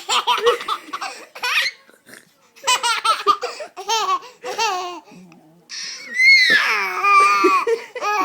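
A baby laughing in repeated bursts of high-pitched belly laughs, ending in a long squealing laugh that starts about six seconds in and falls in pitch.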